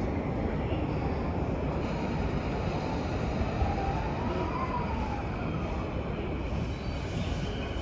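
Chuo Line rapid electric commuter train pulling away from the platform: a steady rumble of motors and wheels, with a motor whine that rises and then falls about halfway through.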